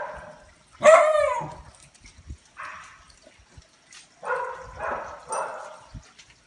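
Dogs barking and yipping in about five short bursts during rough play, the loudest about a second in and three coming close together in the second half.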